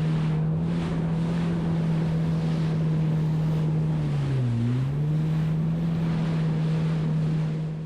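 Jet ski engine idling steadily, its pitch dipping briefly and recovering about four and a half seconds in. Wind noise on the microphone and water run underneath.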